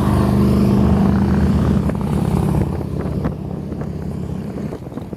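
A motor vehicle's engine running close by with a low, steady rumble, which fades away after about three seconds.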